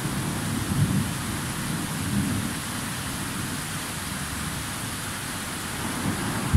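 Steady rain hiss with the low, rolling rumble of distant thunder, a little stronger in the first couple of seconds and then settling.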